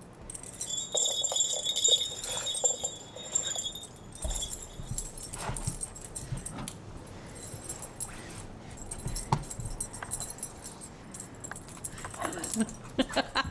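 A dog's collar tags jingling as a greyhound runs and plays in snow; the jingling is loudest in the first few seconds, followed by scattered soft knocks.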